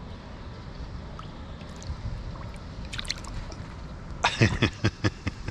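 Water lapping and trickling around a kayak hull, with a quick cluster of sharp knocks and splashes a little past four seconds in.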